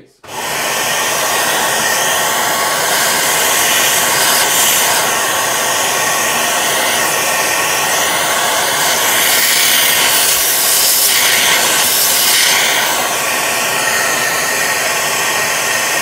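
A corded household vacuum cleaner switches on and runs steadily, air rushing into its metal suction tube as it sucks dust out of a cordless vacuum's filter. The rush of air changes a little for a few seconds midway while the filter is held against the nozzle.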